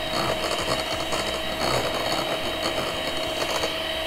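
Electric hand mixer running at a steady whine, its beaters whisking a batter of eggs, sugar and vanilla extract in a bowl.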